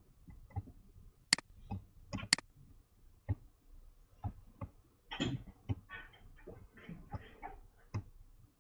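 Computer mouse clicking: scattered faint clicks, two sharper ones a little over one and two seconds in, with some soft scuffing noise past the middle.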